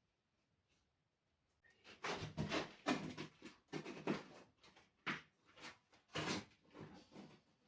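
Irregular knocks and scrapes, about one or two a second, starting about one and a half seconds in.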